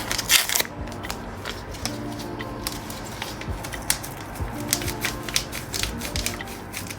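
Soft background music with a repeating melody, over irregular clicks and light taps of small household objects being handled.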